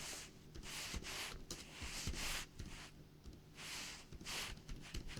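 Soft brushing noises close to the microphone, coming irregularly every half second to a second, over a faint steady electrical hum.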